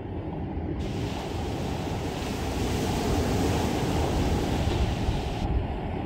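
Small sea waves breaking and washing up a sandy beach. The hiss of the surf swells about a second in and eases again near the end.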